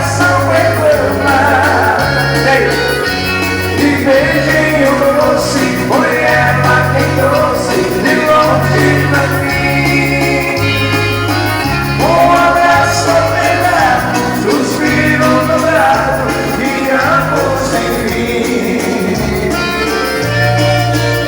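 Live dance band playing a waltz, the bass stepping between notes about once a second under the melody.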